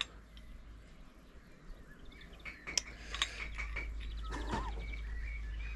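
A few light metallic clicks and clinks of small metal parts being handled, over a low steady hum.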